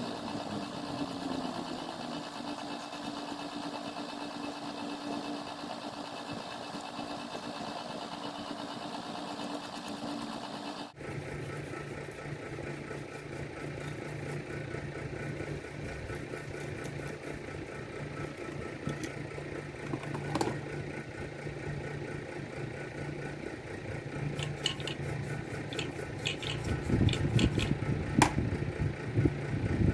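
A steady machine hum, which changes abruptly about eleven seconds in to a lower hum. Scattered clicks follow, and the low rumble grows louder near the end.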